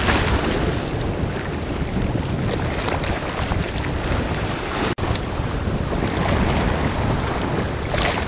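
Sea waves washing against a rocky shore, swelling and ebbing, with wind buffeting the microphone. The sound cuts out for an instant about five seconds in.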